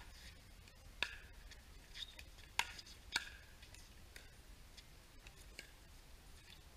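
Pickleball paddles striking the ball in a doubles rally: a series of sharp pocks, the loudest about a second in and a pair about half a second apart near the middle, with fainter hits after that.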